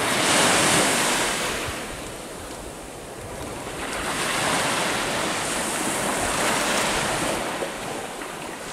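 Ocean surf breaking on the beach: a rushing wash that swells in the first second or so, eases off, then builds again from about four seconds in. Wind buffets the microphone underneath.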